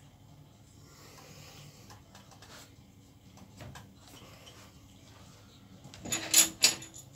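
Quiet handling sounds, then a brief clatter of small metal parts about six seconds in, with two sharp ringing clinks close together.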